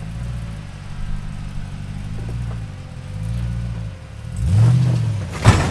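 Jeep Gladiator's engine working at low speed over rocks, its note swelling and dropping with repeated throttle pulses, then a louder rev near the end. A sharp knock comes just before the end.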